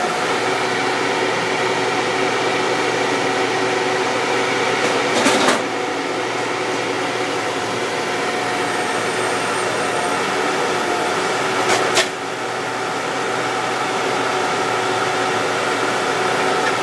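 A motorcycle crusher runs steadily with a constant mechanical hum and whine. Two brief sharp cracks sound about five seconds and about twelve seconds in.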